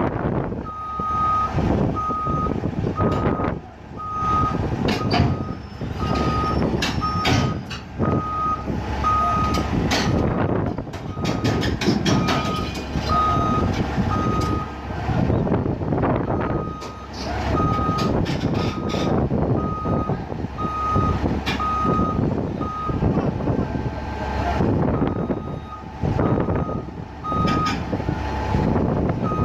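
Heavy equipment backup alarm beeping at an even pace, about three beeps every two seconds, with two short breaks, over a working diesel engine and scattered sharp metal knocks.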